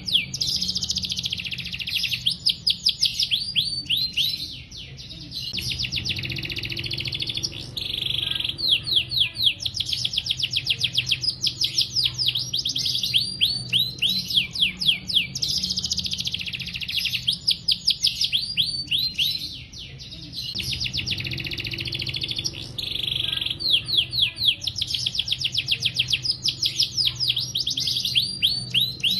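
Domestic canary singing a long, continuous song of fast trills: rapid runs of downward-sweeping high notes, dropping off briefly about five seconds in and again near twenty seconds.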